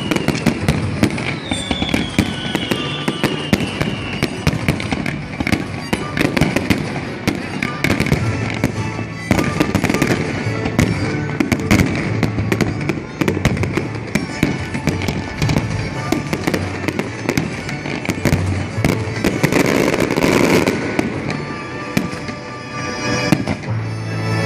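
Fireworks display: a dense run of bangs and crackling as aerial shells and rockets burst, with a couple of falling whistles in the first few seconds.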